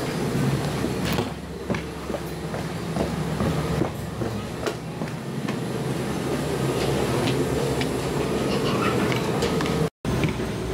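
Steady low rumbling with scattered clicks and knocks, the sound of walking down an airport jet bridge to board an airliner. It cuts out for a split second near the end.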